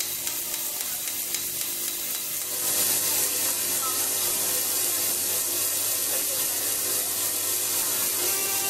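Live experimental electronic music: a dense crackling, hissing texture like static, which grows louder and brighter a little under three seconds in, with a few faint held tones underneath.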